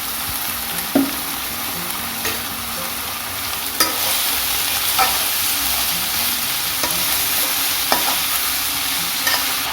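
Sliced onions sizzling in hot oil in a pan, a steady hiss, while being stirred, with a utensil knocking against the pan about every second or so.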